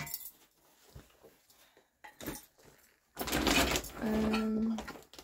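Handling noise: a few faint clicks, then rustling and knocking about three seconds in as items are picked up and moved close to the microphone.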